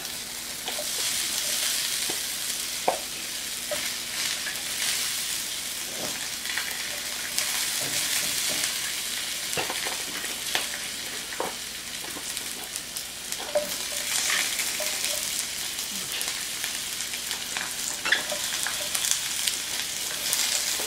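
Sliced red and green bell peppers and onions sizzling in a hot oiled grill pan as they are laid in one by one with metal tongs. Scattered light clicks and knocks of the tongs and pieces on the pan run through the steady hiss.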